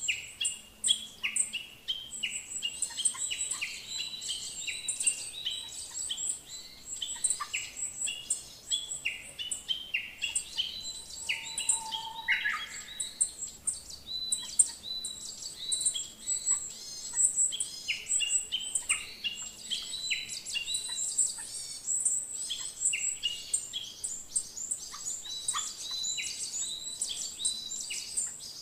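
Many birds chirping and calling at once: a dense chorus of short, quick, high notes overlapping without pause.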